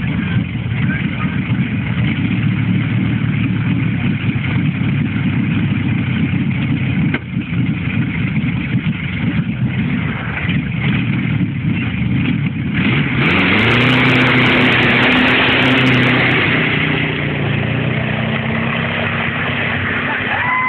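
The Napier-Bentley's Napier Lion W12 aero engine idling with a dense low rumble. About 13 seconds in the revs rise sharply as the car launches, then it holds a loud, steady note as it climbs away.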